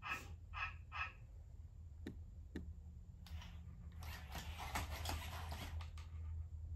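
A dog panting in quick, short breaths, about three a second, stopping about a second in. Then come a couple of light clicks and a stretch of scrabbling and rustling as it moves about.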